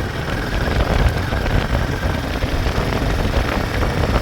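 Royal Enfield Himalayan 452 on the move: a steady rush of wind and road noise over the helmet-mounted phone microphone, with the single-cylinder engine running underneath.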